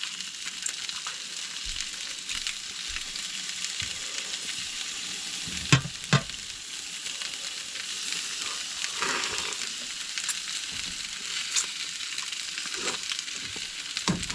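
Food frying on a hot cooking surface, a steady sizzle, with two sharp knocks of a utensil about six seconds in and a few lighter clatters later.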